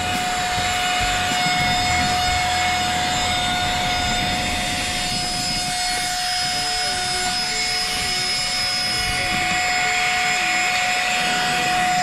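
Cordless handheld mini vacuum cleaner running steadily with a high, even motor whine, sucking spilled rice grains and bits of french fries off a car's floor carpet.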